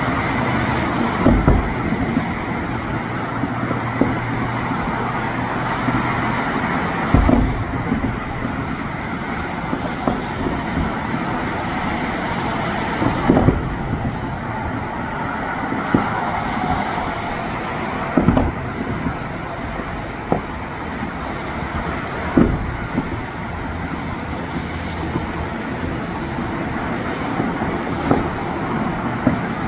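Fireworks bursting, single booms every two to three seconds, over a steady din of road traffic.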